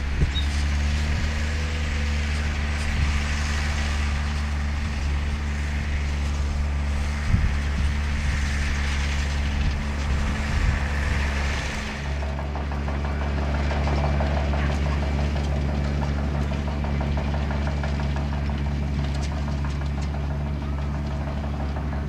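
New Holland tractor's diesel engine running steadily under load while pulling a Kverneland reversible plough through the soil, with a higher hiss over it for the first half.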